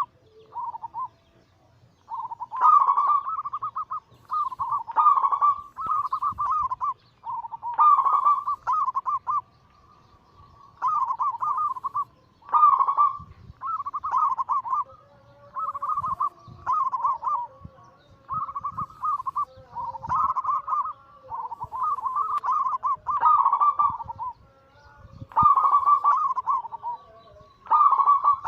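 Zebra doves (perkutut) cooing: a long run of short trilled coo phrases pitched around the same note, coming every second or two with brief pauses, a fainter lower-pitched call joining in midway.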